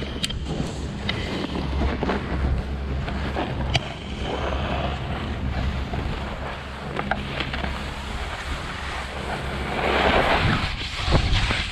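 Wind buffeting a pole-mounted camera's microphone while skiboards hiss and scrape over groomed snow. About ten seconds in the scraping swells louder as the skiboards carve a turn.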